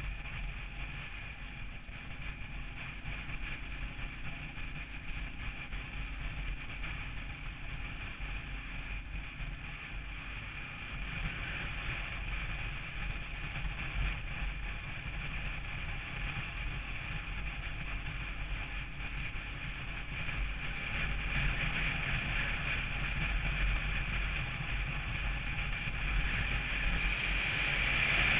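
Road vehicle driving: steady engine rumble with road and wind noise, growing louder toward the end.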